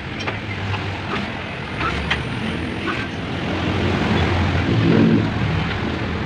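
Steady low rumble of a motor vehicle, swelling about five seconds in, with a few light clicks in the first three seconds.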